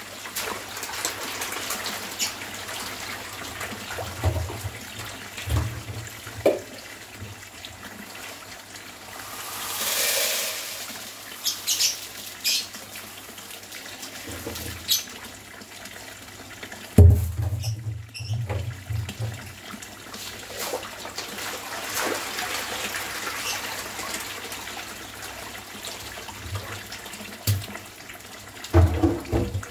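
Steady splashing of water pouring from an inflow pipe into a tarpaulin catfish pond, with scattered sharper splashes across the surface and a few low thumps, the strongest about halfway through.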